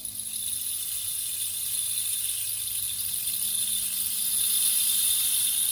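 A rain stick being tipped, its filling trickling down inside in a steady, even hiss.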